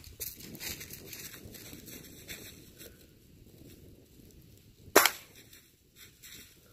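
A single sharp crack of a spring-piston pellet rifle firing, about five seconds in. It is preceded by rustling leaves and small clicks of the rifle being handled.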